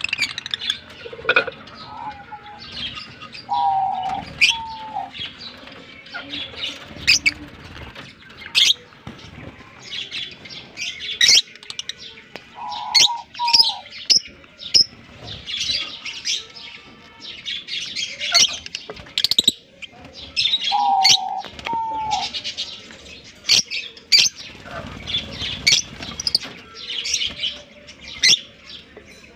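A colony of lovebirds, including Fischer's lovebirds, chattering with a steady stream of sharp, high-pitched chirps. A few short, lower whistled notes come through now and then.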